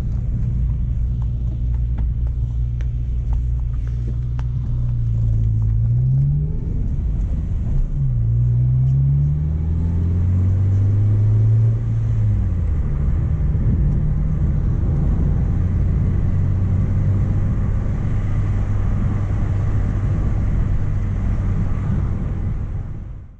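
Mk1 Renault Clio's engine running steadily, rising in pitch three times (about five, eight and ten seconds in) and settling back each time, then running evenly until it cuts off.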